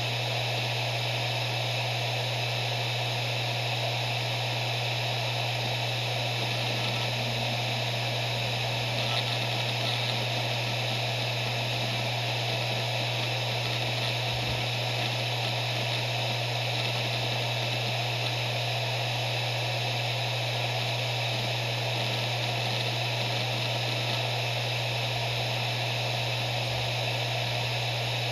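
Maxtor MaXLine Plus II 7200 RPM hard drive spinning at speed: a steady low hum over a constant hiss.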